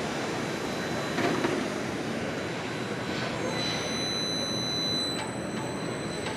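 Steady background din of a large exhibition hall, a mix of distant crowd chatter and air handling, with a faint high tone about halfway through.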